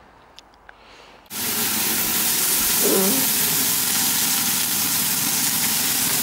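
Steaks sizzling loudly in a hot stainless steel frying pan, cutting in suddenly about a second in after a quiet moment with a few small clicks.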